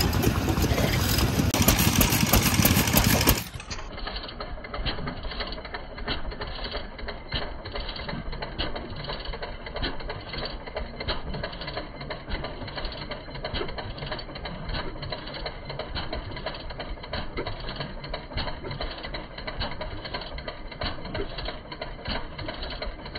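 Vintage stationary farm engines running with a steady mechanical clatter of rapid clicks. For the first three seconds or so a much louder rushing noise covers it, then cuts off suddenly.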